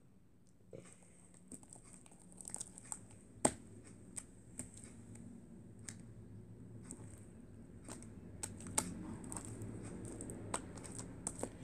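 Fluffy slime being stretched, lifted and pulled apart by hand, giving scattered small sticky crackles, pops and tearing sounds that come more often from about two seconds in.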